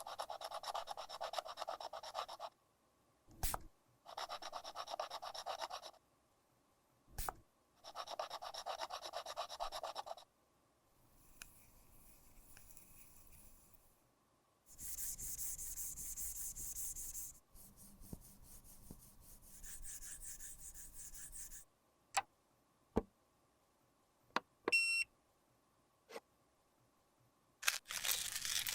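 Close-up rubbing and scraping of makeup being worked by hand. Three long, even strokes come in the first ten seconds, followed by softer then hissier scratchy stretches, scattered small clicks, a short high beep about 25 seconds in, and a quick run of clicks near the end.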